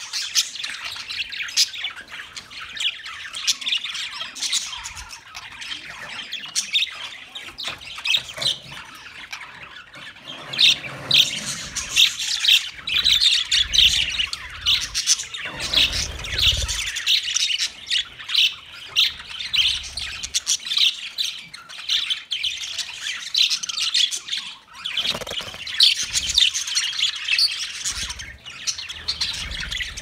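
A flock of budgerigars chattering, a dense mix of overlapping squawks and chirps, busier and louder from about a third of the way in.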